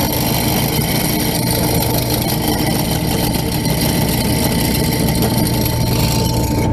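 WEN 4208 bench drill press's 1/3 HP induction motor running steadily with a constant hum while the bit drills through a metal pipe.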